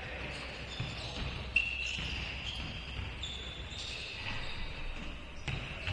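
Basketball game play on a hardwood gym floor: sneakers squeak in short high-pitched chirps while the ball bounces on the court, with a sharp hit about one and a half seconds in.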